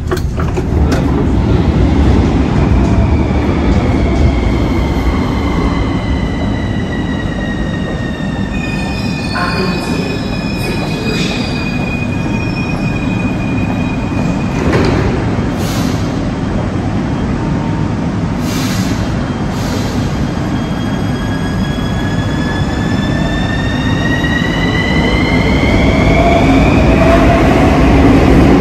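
Bucharest Metro train running between stations: a steady rumble of wheels on the rails under the whine of its electric traction motors. The whine falls in pitch over the first several seconds, holds steady in the middle, and rises again over the last several seconds as the train gathers speed.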